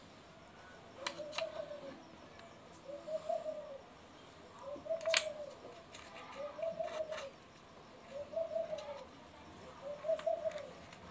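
A pigeon cooing, a short rising-and-falling coo repeated about every two seconds. A few sharp clicks, the loudest about halfway through, as coins are set into a steel dish.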